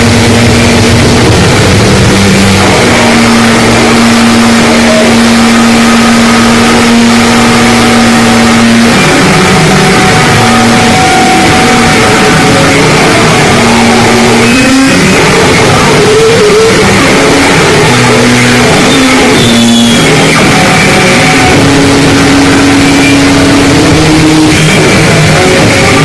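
Harsh noise music: a constant, loud wall of distorted noise with held droning pitches that shift every few seconds. Two sharp cracks cut through it about halfway through and a few seconds later.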